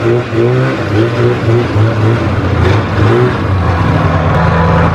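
1995 Polaris Indy Trail 500 snowmobile's two-stroke engine running just after starting on freshly cleaned carburetors: the throttle is blipped in a quick string of short revs for about three seconds, then the engine settles into a steady idle.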